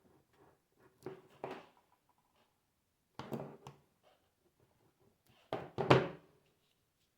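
Knocks and clatter of small objects being handled on a workbench, in three short bunches, the last the loudest.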